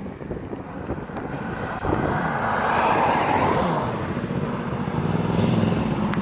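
Motorcycle engine running: its note falls in pitch through the middle under a swell of rushing noise, then settles into a steady note that grows louder near the end.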